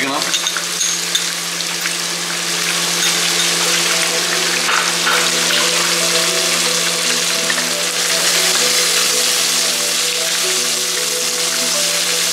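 Spices or onions sautéing in hot oil in a pan, a steady sizzle that grows a little louder about two seconds in, with background music underneath.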